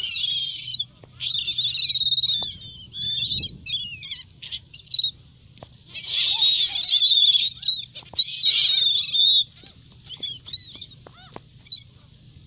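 A flock of gulls calling over one another in short, high, arching cries, loud in two spells and thinning to a few scattered calls near the end.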